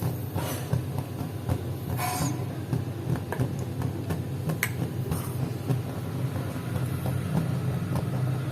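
Kitchen utensils clicking and knocking at the stove, a few sharp knocks standing out, over a steady low hum.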